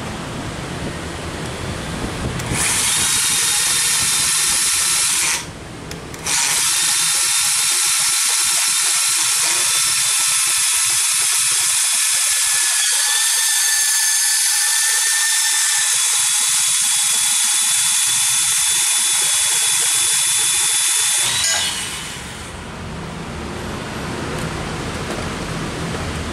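Bosch BSH180 18-volt cordless band saw cutting through 40 mm square hollow steel tube with a 2 mm wall: the blade runs loud and steady, stops briefly about five seconds in, then resumes and cuts for about fifteen seconds before the motor stops.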